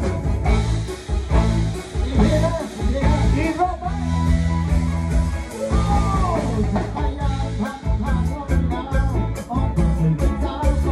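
Live band playing amplified through a PA, with a steady bass-and-drum beat and a man singing into a microphone.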